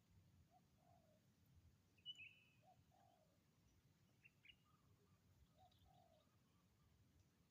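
Spotted dove cooing faintly, a short two-part coo repeated about every two and a half seconds. Sharp, higher bird chirps break in about two seconds in, the loudest sound here, and again briefly about four and a half seconds in.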